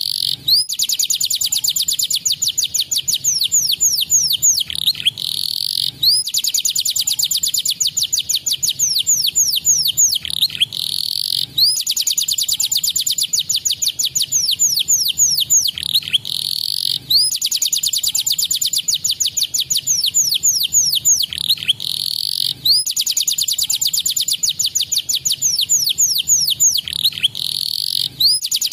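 Domestic canary singing in long, rapid trills of quickly repeated falling notes, broken about every five seconds by a short rolling phrase.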